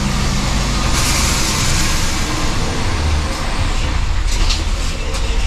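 Truck engine and road noise heard from inside the cab while driving: a steady low rumble, with a brief hiss about a second in.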